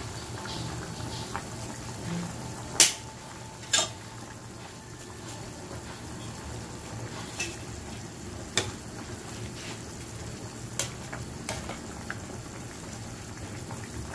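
A pot of chicken soup boiling with a steady bubbling hiss while a metal ladle stirs it. Several sharp clinks of the ladle against the metal pot, the loudest two about three and four seconds in.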